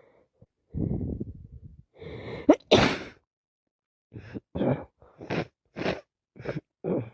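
A woman with a head cold sneezing: a rising, gasping intake ends in one loud sneeze about three seconds in, followed by a quick string of about six short breathy bursts.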